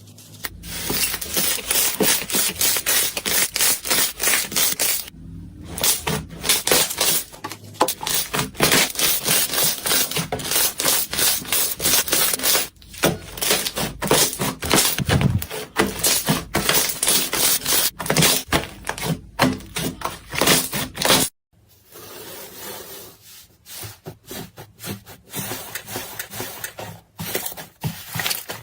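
Slime being pressed and squeezed by hand, giving dense crackling and popping clicks. It cuts off briefly about three-quarters of the way through, then carries on a little quieter.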